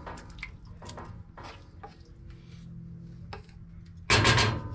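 Courgette and prawns being scraped off a frying pan with a wooden spatula and dropping wetly into a large aluminium pot of pasta: soft scrapes and squelches over a low steady hum. Near the end, a louder rasping scrape of about half a second as the spatula works in the pot.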